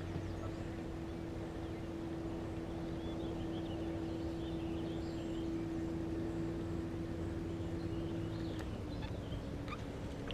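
A boat motor running steadily with a hum that drops slightly in pitch near the end, with faint bird chirps over it.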